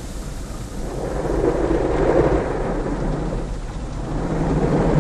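Water jets of an automatic car wash spraying hard against the windscreen and body, heard from inside the car's cabin. The spray swells about a second or two in, eases, and swells again near the end.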